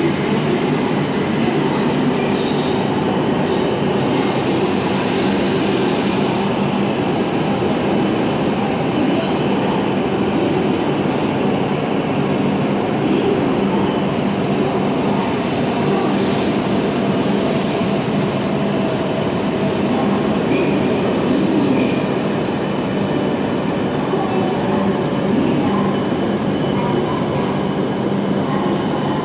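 E7/W7-series shinkansen pulling into a station platform and slowing, its cars running past close by with a steady rushing noise over a low, even hum.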